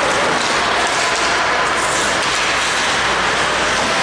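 Steady wash of noise from an ice hockey game in play in an indoor rink, with no single sound standing out.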